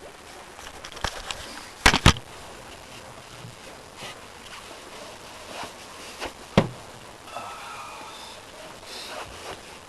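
Water sloshing and splashing, broken by a few sharp knocks: a close pair about two seconds in and another past six seconds.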